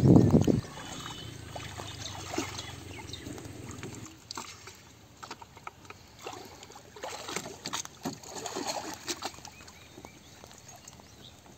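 Pond water splashing and sloshing around a plastic bucket dipped and moved in shallow water, with one loud splash at the very start, then lighter splashes and drips.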